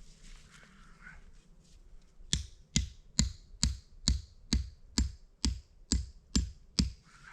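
A run of eleven hard, evenly spaced strikes, a little over two a second, starting about two seconds in; each strike is a sharp blow with a low thud and a bright ring.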